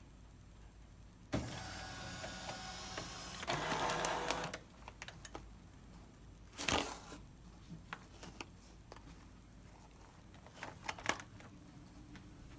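Nozzle-type vacuum sealer's pump starting about a second in and running for about three seconds, drawing air out of the bag, with a louder hiss before it stops. A sharp clunk follows a couple of seconds later, and a few light clicks come near the end.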